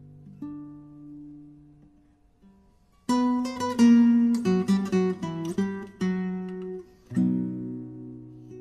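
Background music played on a solo acoustic guitar: a few held notes fade to a near-quiet pause, then about three seconds in a quick run of plucked notes starts, settling on a ringing chord near the end.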